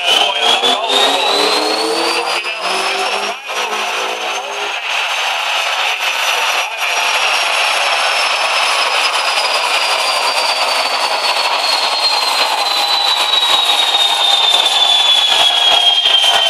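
Volkswagen Jetta with a 2.0-litre 6A engine on a rolling road, run up under full load: the engine note and a high whine from the tyres and dyno rollers rise together for about four and a half seconds. Then the engine is lifted off and the whine falls slowly as the rollers run down.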